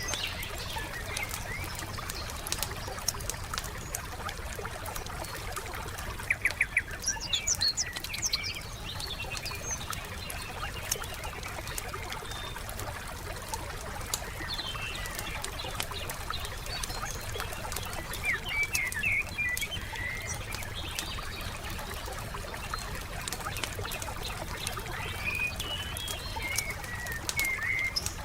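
Wood fire crackling with many small pops, while songbirds chirp and trill in short phrases, most strongly about six to eight seconds in, again around nineteen seconds, and near the end.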